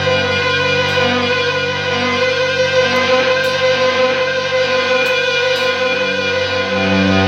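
Electric guitar played through a treadle-operated volume pedal and a delay, producing bowed-sounding swells: long held notes that overlap and fade into each other, with a new low note swelling in near the end.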